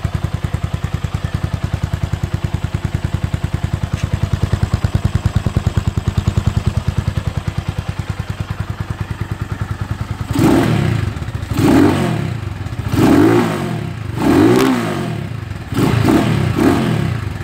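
Rusi SS250 motorcycle with a full-system Akrapovic exhaust, cold-started and idling with an even, steady pulse, its dB killers still in. About ten seconds in, the throttle is blipped five or six times, each rev rising and falling back to idle.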